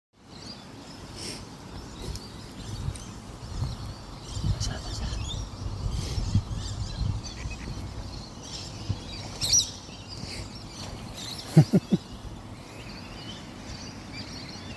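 Small birds chirping and calling here and there over a low, uneven rumble, with a quick run of sharp knocks about two-thirds of the way in.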